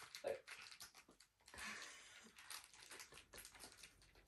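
Near silence: faint rustling and light clicks of fabric and gift bags being handled.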